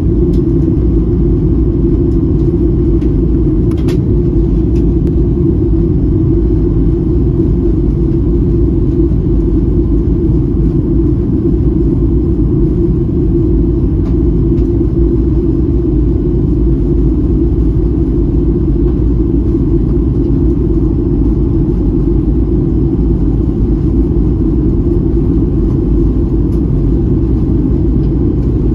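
Steady low rumble of jet engine and airflow noise inside the cabin of a Boeing 737-900ER in flight, from its CFM56-7B turbofans.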